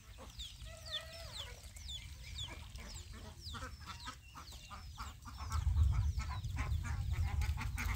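Chickens calling: a steady run of short, high, falling peeps and clucks, with a low rumble growing louder about five and a half seconds in.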